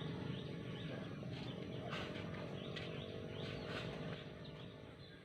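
Birds chirping in short, repeated calls over a steady low hum, both fading toward the end.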